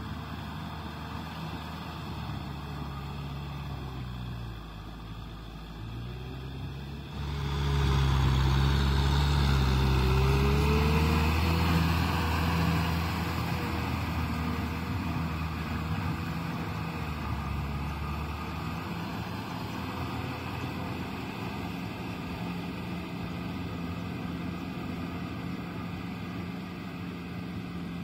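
Kubota M6040SU tractor's four-cylinder diesel engine running under load as it drives a rotavator through wet mud. It gets suddenly louder about seven seconds in, stays loud for a few seconds as the tractor passes close, then slowly fades as it moves away.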